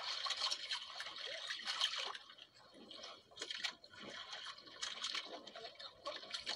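Sea water lapping and splashing against the side of a small boat, louder for the first two seconds and then softer.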